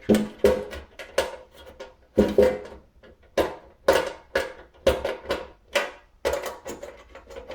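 Irregular metallic clicks and knocks, roughly two a second, each ringing briefly: a screw being worked out of the thermostat mounting in the oven's sheet-metal housing.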